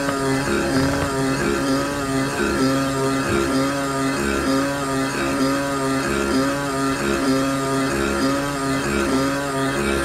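Electric motor of a Signal-Stat Model 381 rotating beacon running, a steady hum that pulses in a regular rhythm as the reflector turns.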